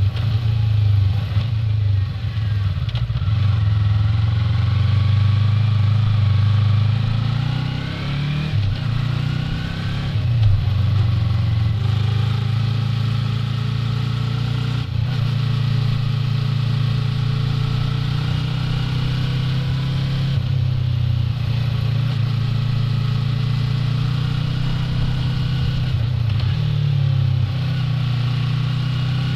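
Yamaha R3's parallel-twin engine running under way, recorded on board, its note dropping and rising again several times as the rider works the throttle through the bends.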